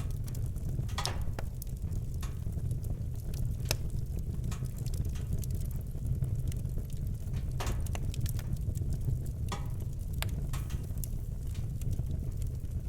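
Wood fire burning in a fireplace: a steady low rumble with irregular sharp crackles and pops, one or two a second.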